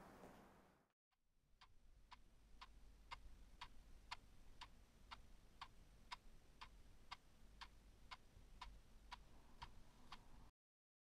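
Faint clock ticking, steady at about two ticks a second. It starts a little over a second in and cuts off suddenly near the end.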